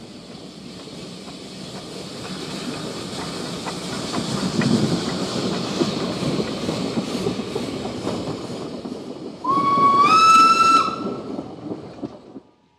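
Narrow-gauge steam locomotive and its wooden carriages passing close by, with steam hissing around the wheels and wheels clicking over the rail joints, growing louder as it draws level. About nine and a half seconds in a steam whistle blows for about a second and a half, its pitch stepping up, and then the sound fades and cuts off near the end.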